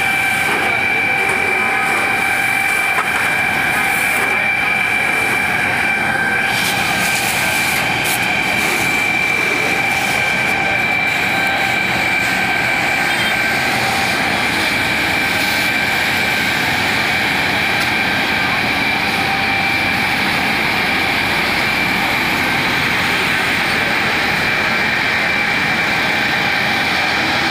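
Fire engine running its water pump: a steady, loud mechanical drone with a constant high whine over it.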